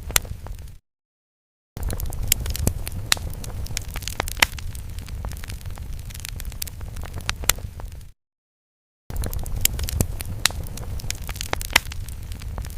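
Fire sound effect: a low steady rumble with many sharp crackles and pops. It cuts to silence twice for about a second before starting again.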